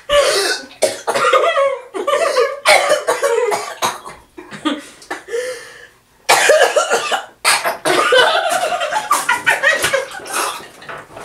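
People coughing and sputtering as they chug water from plastic gallon jugs, choking on the water, in repeated rough bursts with a brief lull about six seconds in.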